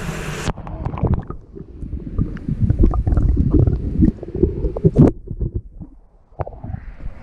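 Muffled underwater sound from an action camera held submerged in a trout hatchery raceway: low rumbling water movement with irregular knocks and clicks, sharpest about five seconds in. The sound turns dull about half a second in as the camera goes under, and opens out again with splashing near the end as it comes back up.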